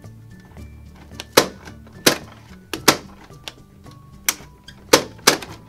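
Plastic toy popcorn maker's hand crank being turned, giving six sharp plastic clicks at uneven intervals of about a second as its mechanism pops the popcorn out, over light background music.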